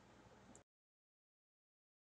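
Near silence: faint room tone that cuts off to total silence about half a second in.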